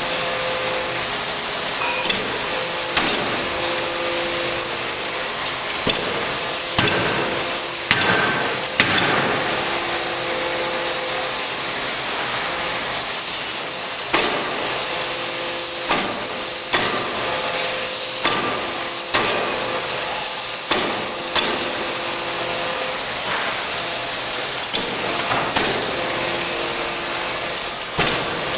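A 3-ton C86-series hydraulic closed die forging hammer strikes blow after blow at uneven intervals, about fifteen times, over a steady hiss of running machinery. A steady hum switches on and off between blows.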